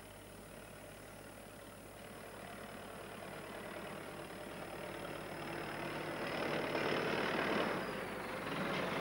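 Farm tractor engine approaching and growing steadily louder, then easing off as it pulls up alongside near the end.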